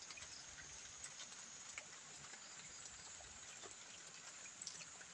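Near silence: faint outdoor background hiss with a thin steady high tone and scattered soft clicks and ticks.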